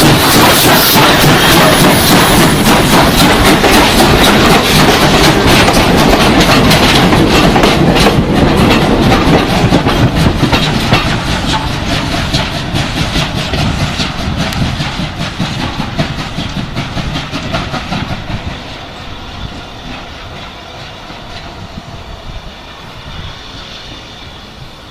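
Steam-hauled goods train rolling past on the rails, its wagon wheels clacking rapidly over the rail joints. It is loud at first and fades away steadily from about eleven seconds in as the train draws off.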